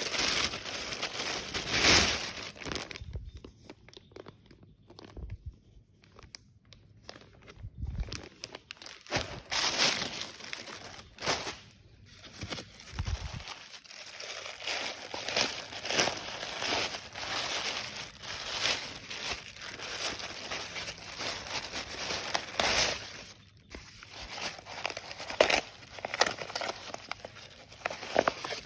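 Packaging crinkling and rustling as a parcel is handled and opened, in irregular crackly bursts with some tearing, quieter for a few seconds early on.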